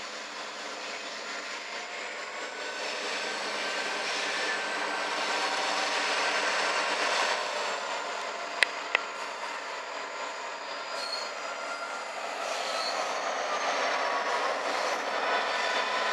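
Two EMD GP-series diesel locomotives working under load as they pull a nine-car freight up a steep grade, getting louder as they draw near, with steel wheels squealing on the rails. Two sharp clicks about eight and a half seconds in.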